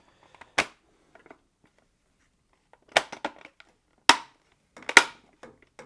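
Sharp plastic clicks and snaps as a circuit board is pressed into the clips of a Samsung ecobubble washing machine's plastic control panel: four loud clicks spread over several seconds, with lighter handling ticks between them.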